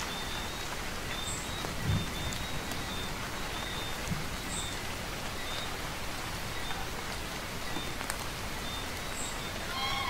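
Steady rainfall, an even hiss of drops. Faint short high-pitched tones recur every second or so, and there is a low thud about two seconds in.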